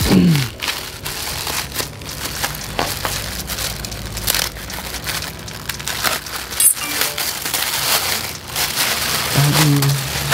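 Plastic wrapping crinkling and tearing in a dense run of irregular crackles as it is pulled off by hand from a new exhaust muffler.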